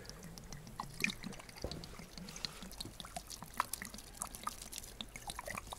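Liquid poured from an upturned plastic bottle onto feathers in a metal tank, heard as a faint run of many small drips and splashes.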